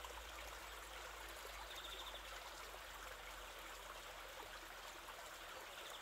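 Faint, steady sound of flowing water, like a shallow stream trickling.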